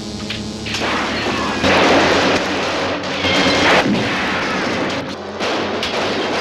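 Action-film battle sound effects: loud blasts with a dense rushing, crackling noise, swelling twice, about two seconds in and again about three and a half seconds in.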